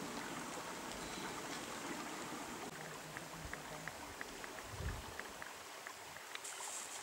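Steady rushing outdoor background noise in a forest campsite, with faint small clicks scattered through the middle and a single low thump just before five seconds in.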